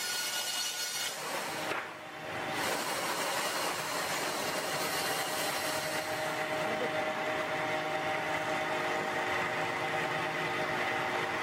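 Sawmill machinery running: a steady mechanical noise with a held whine. It dips briefly about two seconds in, then carries on.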